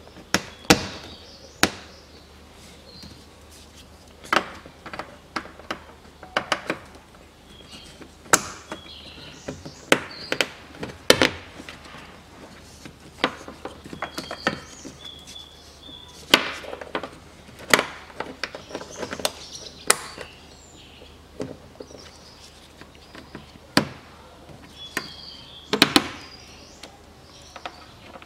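Irregular sharp plastic clicks and knocks as wiring connectors and harness clips are pushed into place on a Range Rover Evoque's front door with its trim panel off.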